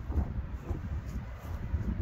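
Wind buffeting the microphone: an irregular low rumble that comes and goes in gusts.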